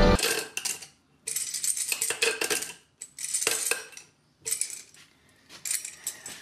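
Handmade hand-powered circular bone saw, its small toothed steel blade and drive gear clattering against a strip of wood in about five short bursts of strokes. The blade turns too slowly to cut and skitters over the wood instead of biting in.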